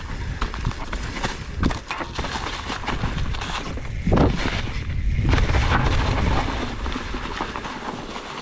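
Mountain bike riding along a rough dirt trail: tyres crunching over the ground and the bike rattling, with many short knocks and a heavy low rumble that is loudest from about four to seven seconds in.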